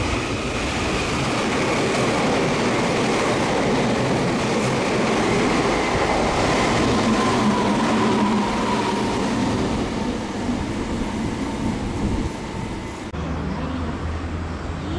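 Meitetsu electric train running through the station without stopping: a steady loud rush of wheels on rail with a faint high whine. About two seconds from the end the sound drops suddenly to a quieter, lower rumble.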